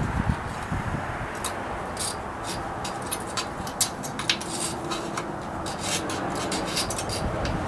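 A screwdriver scraping and prodding inside a steel water-heater expansion tank through a small test hole: a string of short scratches and clicks over a steady background hiss.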